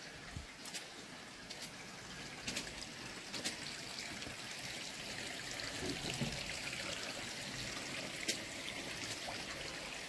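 Small forest stream trickling steadily, with a few sharp clicks scattered through it, the clearest about eight seconds in.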